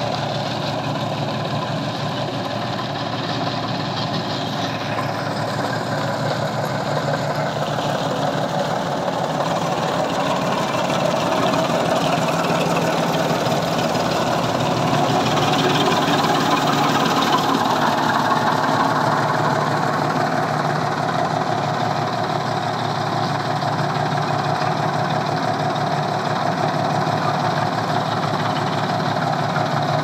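Chaff cutter driven by a 3 hp electric motor, running steadily while green fodder is fed in by hand and chopped by its blades. It gets a little louder in the middle.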